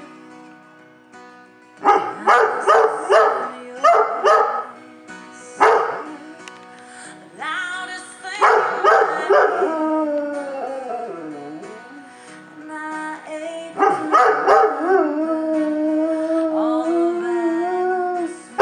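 A Giant Schnoodle howling along to a live recording of a song. A long, steady howl holds through the last few seconds.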